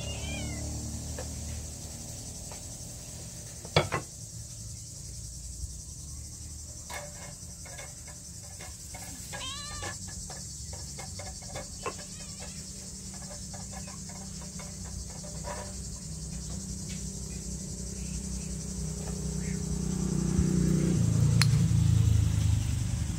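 Yard ambience with a steady high insect-like hiss and a couple of short mewing animal calls, one just after the start and one about ten seconds in. A sharp knock near four seconds and light clinks of dishes being set down on a cloth, with a low rumble swelling near the end.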